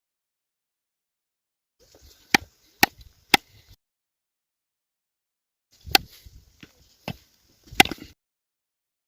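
A blade chopping down onto wood: three sharp strokes about half a second apart, a pause of a couple of seconds, then three more strokes spread over about two seconds.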